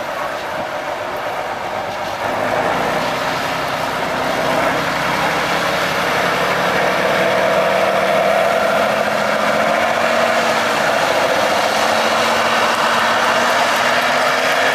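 Tatra 813 trial truck's diesel engine working hard as the truck crawls across a steep slope. It gets louder about two seconds in, climbs a little more, then holds at a high, steady level.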